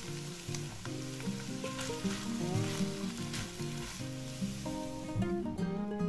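Strips of meat, onion and freshly added sliced button mushrooms sizzling in an oiled frying pan, with a few light clicks, over background music.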